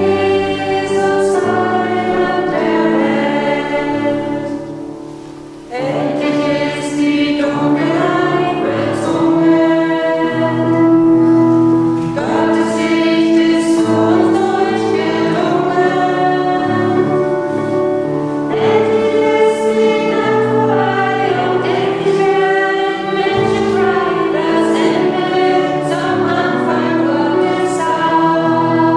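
A group of voices singing a hymn together with instrumental accompaniment, in slow held phrases, with a short break about five seconds in.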